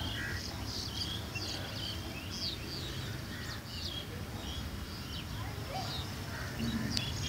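Small birds chirping: many short, high chirps scattered irregularly, over a low steady rumble.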